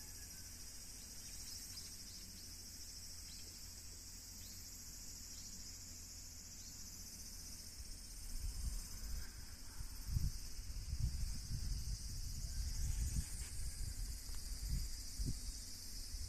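Steady high-pitched chorus of summer insects. From about halfway through, an irregular low rumble joins it.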